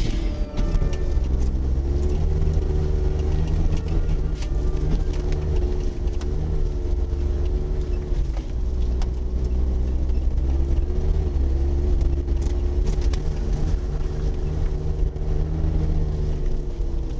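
Suzuki Jimny JA11's small turbocharged three-cylinder engine running steadily at low speed on a snow-covered road, heard from inside the cabin, its pitch rising and falling slightly. Scattered light clicks and ticks sound over it.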